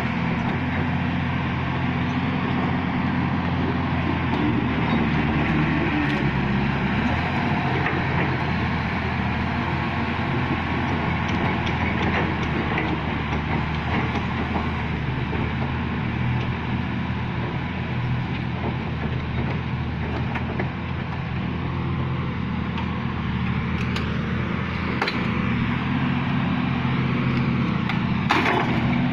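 A heavy machine's engine running steadily, with a few sharp metallic knocks near the end.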